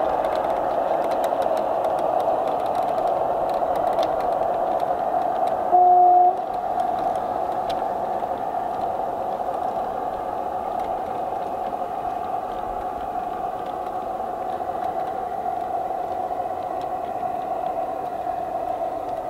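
G-scale garden railway model train, an orange diesel locomotive hauling narrow-gauge coaches, running past on outdoor track with a steady running noise that slowly fades as it moves away. One short, loud toot about six seconds in.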